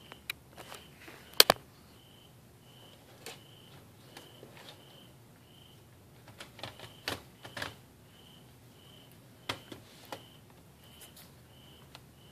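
Sharp plastic clicks and taps of a laptop's case being handled and pressed into place by hand. They come scattered, the loudest about a second and a half in, with clusters around seven seconds and again around nine to ten seconds.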